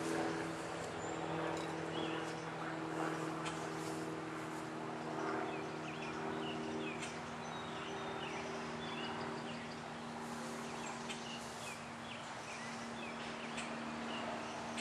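Outdoor ambience: scattered short bird chirps over a steady low hum.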